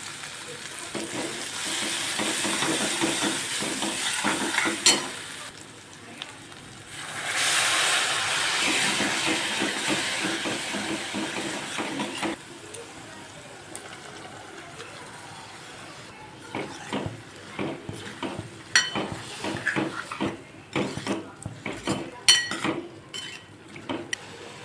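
Food sizzling in a hot pan in two loud spells, followed by a quieter stretch of a spoon knocking and scraping against the pot as the mixture is stirred.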